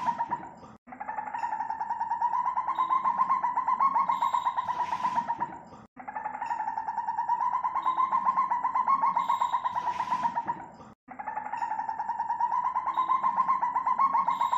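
Civet call: a fast buzzing trill held around one pitch for about five seconds. The same recording is looped, cut off sharply and restarted about 1, 6 and 11 seconds in.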